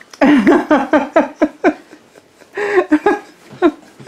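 A person laughing: two runs of short, quick 'ha' bursts with a pause of about a second between them.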